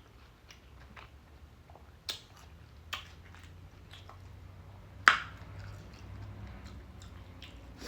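A person chewing food close to the microphone, with wet mouth smacks and clicks scattered through. A sharp smack about five seconds in is the loudest.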